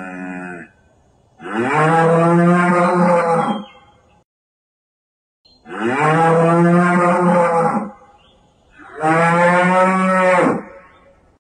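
Bovine lowing: three long, drawn-out moos of about two seconds each, with pauses between, after the fading end of an earlier moo.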